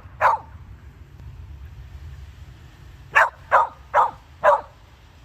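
Samoyed barking: one short bark at the start, then a run of four quick barks about three seconds in.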